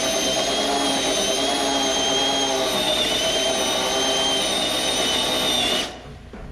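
Cordless drill running steadily under load, its big bit drilling out a spot weld in a truck rocker panel's sheet steel. The motor stops near the end.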